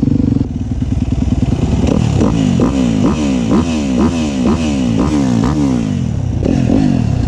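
Motorcycle engine revved in a quick series of throttle blips, about two to three a second, each rev jumping up and falling away, between stretches of steadier running.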